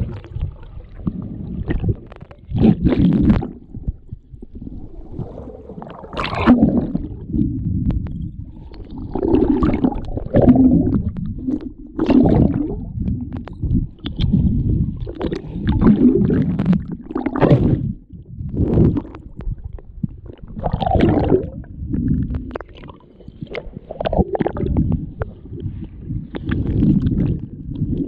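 Muffled river water sloshing and gurgling right against the camera, in uneven low surges every second or two.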